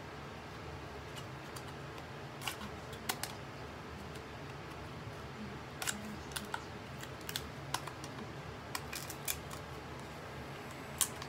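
Hands handling small objects and wrapping: irregular sharp clicks and light crinkles, about a dozen, more frequent in the second half.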